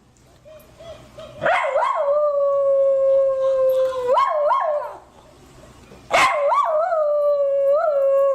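Dog howling: two long howls, each held on one steady pitch and broken by short yelping notes, with a pause of about a second between them.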